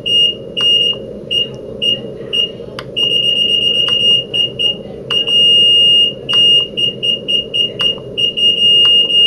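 Stryker S3 hospital bed's bed-exit alarm cycling through its selectable alarm sounds: a high electronic beep at one fixed pitch, played in changing patterns of short pulsed beeps, runs of rapid beeping and a few long steady tones. Short sharp clicks fall between some of the patterns.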